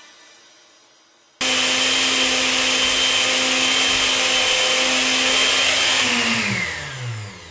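Countertop jug blender switched on about a second and a half in, running loudly at full speed with a high whine, then switched off and spinning down with a falling pitch near the end.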